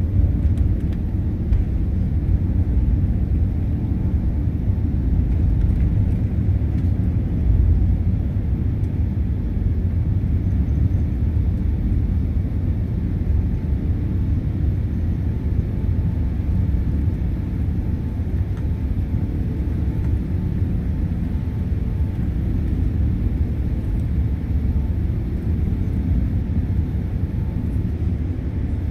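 Airbus A380-800 cabin noise at takeoff: the engines at takeoff thrust make a loud, steady low rumble. The rougher rumble of the takeoff roll evens out about eight seconds in as the aircraft lifts off, and the climb-out stays steady.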